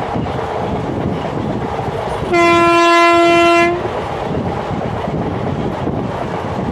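Indian Railways train horn sounding one steady blast of about a second and a half, starting a little over two seconds in, over the continuous noise of the running train.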